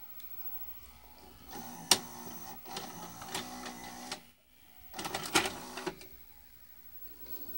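Admiral VHS VCR's tape mechanism running: a click about two seconds in, then motor and gear whirring with small clicks that cuts off suddenly about four seconds in, and a second, shorter burst of whirring and clicks about five seconds in as the deck is switched back on.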